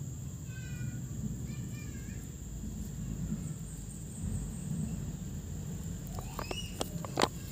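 Outdoor ambience with a steady low rumble and a bird calling briefly twice, about half a second and about two seconds in. Near the end come a few sharp clicks, the loudest about seven seconds in, from pruning scissors and hands working the roots of a bonsai in wet soil.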